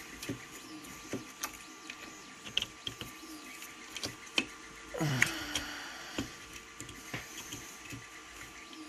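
Irregular small metallic clicks and taps of hand tools and parts being worked on a small engine's carburetor and throttle linkage, over the steady faint hum of a 3D printer. About five seconds in comes a brief falling sound, like a groan.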